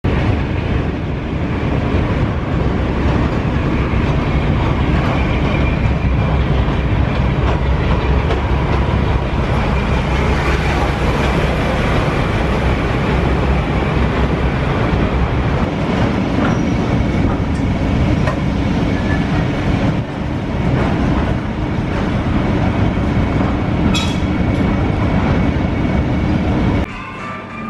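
A train of coaches running close past a station platform: a loud, steady rumble of wheels on the track.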